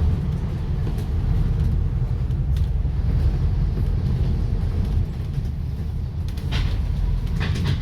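Steady low rumble of a moving bus heard from inside, with a few brief clicks or rattles near the end.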